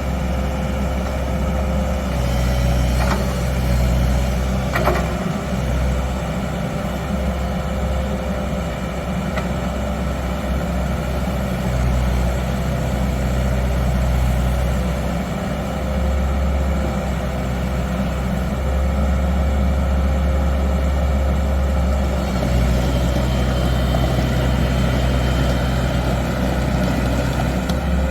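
Komatsu PW110 wheeled excavator's diesel engine running steadily, its low note shifting slightly a couple of times, with two short clicks a few seconds in.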